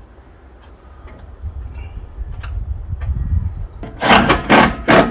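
Ratchet spanner tightening the LPG tank's mounting bolts in quick, loud rasping strokes, about two or three a second, starting near the end. A low rumble builds before the strokes begin.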